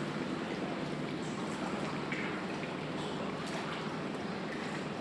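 Steady sloshing and lapping of choppy water, an even wash of noise with no distinct knocks or splashes.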